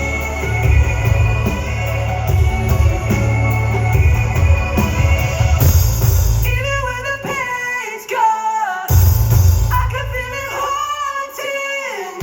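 Live pop song played at full volume: a band with heavy bass and drums under sustained backing for the first half. From about six seconds in, a sung vocal line carries the melody, and the bass drops out briefly around eight seconds before coming back.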